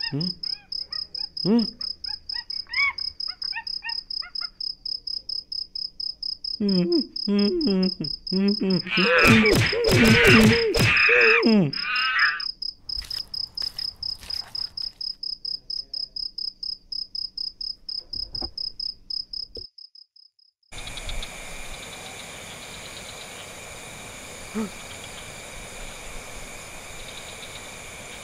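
Crickets chirping in a steady, rapid, high-pitched pulse. Louder pitched calls bend up and down over it, strongest about ten seconds in. The chirping cuts out about twenty seconds in and gives way to a steady hiss.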